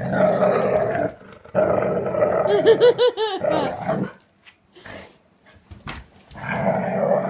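Dog growling in three long stretches at a person's arm reaching under the couch, with a quick run of short wavering high yelps about three seconds in.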